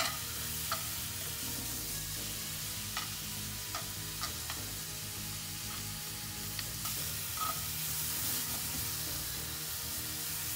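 Strips of marinated chicken sizzling steadily in oil in a hot frying pan. Metal tongs turning the strips make a few light, irregular clicks.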